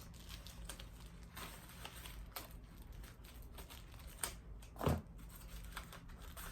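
Paper packing rustling and tearing as a plant is unwrapped by hand: scattered soft crinkles and small tears, with one louder rustle about five seconds in.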